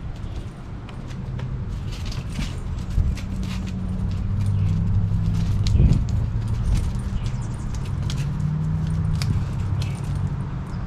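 Dog's collar tags jingling in quick irregular clicks as it walks about, over a low drone that shifts slightly in pitch.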